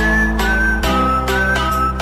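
Background music with a steady beat, led by a high whistle-like melody that steps down in pitch.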